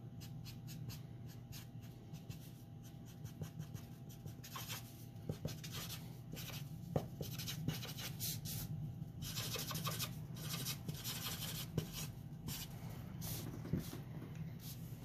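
Copic alcohol marker in neutral gray rubbing across paper in many quick, scratchy strokes, over a steady low hum.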